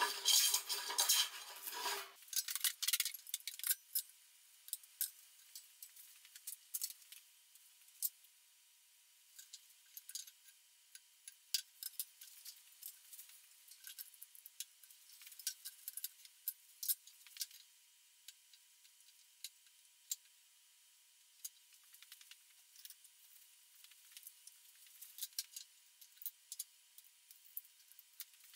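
Scattered light clicks and taps of a wooden straightedge and a metal combination square being set down and shifted on a wooden benchtop, over a faint steady high tone. A louder, fuller sound fills the first two seconds and cuts off suddenly.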